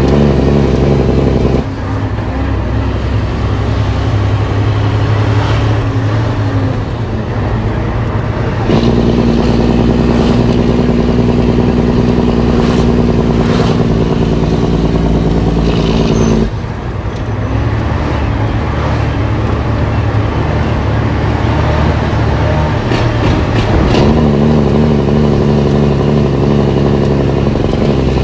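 Heavy truck's diesel engine heard from inside the cab, pulling under way, its note changing in steps about four times as gears are shifted. A few short clicks and rattles from the cab sit over it.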